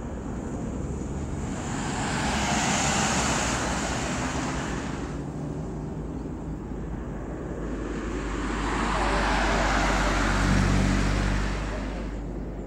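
Road traffic: two cars pass close by one after the other, each a swell of engine and tyre noise that rises and fades. The first passes about two seconds in and the second, louder one around ten seconds in.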